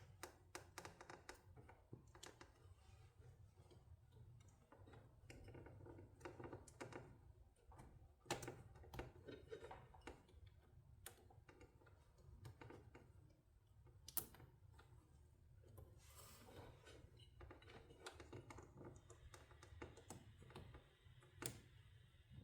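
Faint, scattered small clicks and taps from hands fitting plastic wire clips onto the shadow light's wire along the saw, with two sharper clicks about eight and fourteen seconds in.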